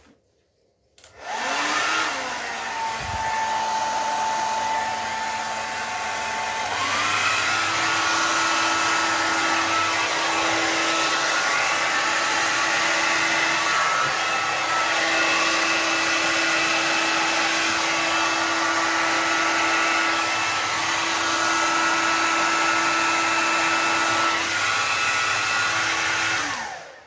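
Hair dryer blowing wet acrylic paint across a painted box top. It starts about a second in with a rising whine, steps up to a higher, louder setting about seven seconds in, and is switched off near the end, its whine falling as it winds down.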